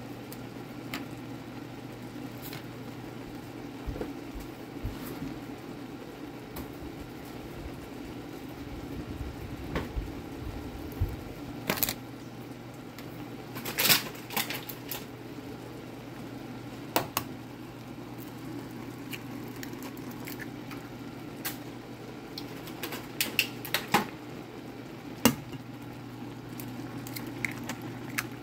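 Ramen broth bubbling in a cast-iron skillet, with scattered pops and several louder clicks over a steady low hum.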